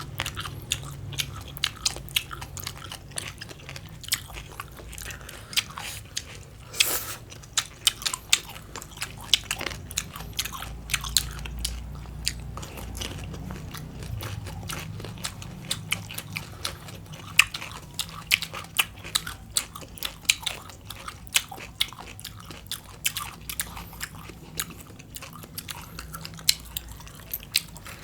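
Close-up crunchy chewing and biting of green papaya salad and cucumber: a steady run of crisp, irregular crunches.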